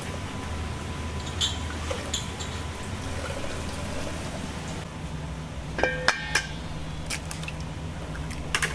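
Liquid poured and ladled from a carbon-steel wok, with a metal ladle knocking and clinking against the wok in a ringing cluster about six seconds in, over a steady low kitchen hum. A couple of sharp taps come near the end.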